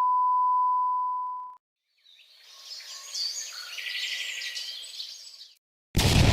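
A steady high beep tone ends about a second and a half in. Then birds chirp and twitter for about three and a half seconds. Near the end, a loud, sudden burst of noise cuts in.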